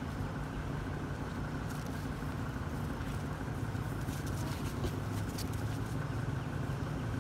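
A steady low hum like an idling engine, with a few faint dry crackles over it.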